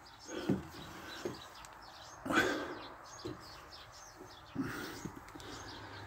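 Small birds chirping in the background, with a few scattered knocks and scuffs from handling and walking; the loudest is a short thud a little over two seconds in.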